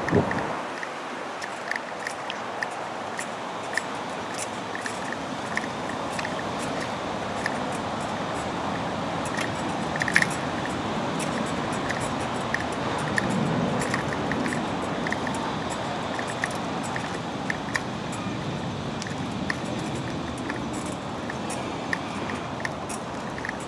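Footsteps of someone walking on a paved path, light regular ticks with scattered clicks from a handheld camcorder being carried, over a steady outdoor hiss like distant traffic.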